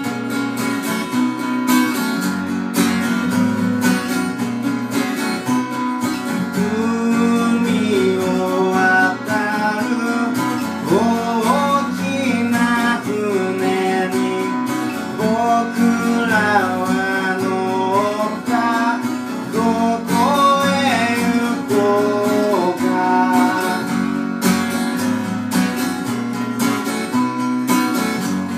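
Acoustic guitar strummed steadily, with a voice singing a melody over it from about seven seconds in until about five seconds before the end.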